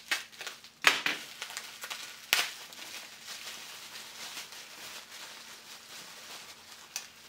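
Plastic bubble-wrap bag crinkling and rustling as it is pulled open by hand to free a memory stick. There are two sharp crackles in the first few seconds.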